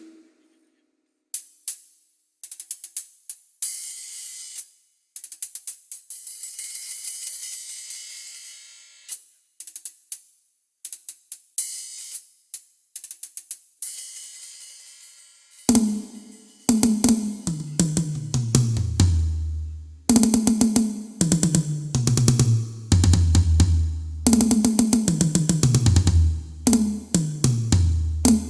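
Drum kit sound check: for about the first half, hi-hat and cymbal strokes alone, some ringing on. About halfway through come loud tom fills that step down in pitch from the high toms to the floor tom, repeated several times.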